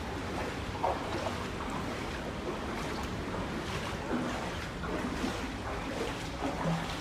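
Steady rush of hurricane wind and floodwater.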